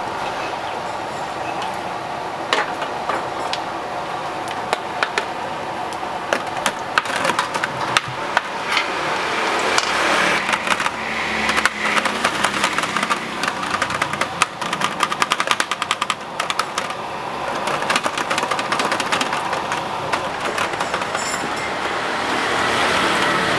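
Utensils clicking and tapping against an aluminium tray as a slab of boiled pork belly is stabbed and worked with a fork and chopstick. The clicks come fastest in the middle. A motorbike passes near the end over a steady background hum.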